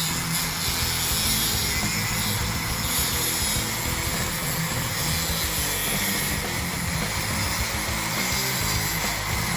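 Angle grinder with a masonry disc cutting a concrete patio stone, a steady hiss and grind, with background music and its bass notes underneath.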